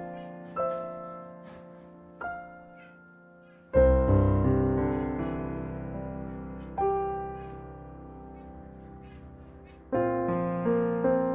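Slow background piano music: a few soft single notes, then deep full chords about four seconds in and again near the end, each left to ring and fade.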